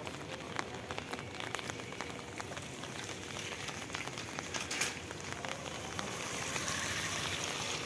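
Steady rain falling, with many separate drops ticking sharply close by; the rain grows a little louder near the end.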